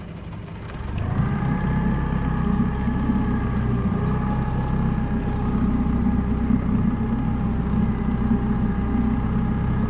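A small boat's outboard motor running, picking up speed about a second in and then holding a steady drone with a deep rumble, moving the boat back toward a hooked catfish.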